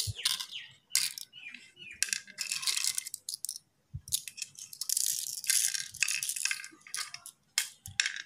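Cowrie shells clicking and rattling together as they are scooped up by hand and dropped into the pits of a wooden pallanguzhi board, in several short clusters of clicks with brief pauses between.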